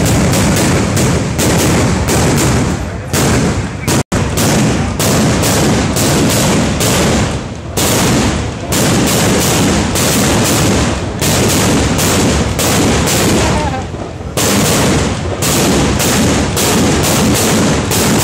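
A rapid barrage of firecrackers exploding at ground level, several sharp bangs a second almost without pause. There is a brief cut in the sound about four seconds in.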